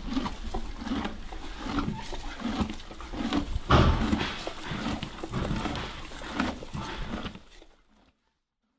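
A horse chewing its feed while being brushed: brush strokes over the coat mixed with steady munching, with one louder knock a little before the middle. The sound fades out near the end.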